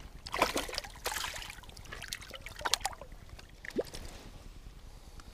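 A hooked perch splashing and thrashing in shallow water as it is brought in by hand: a few short splashes in the first three seconds, the loudest about half a second in.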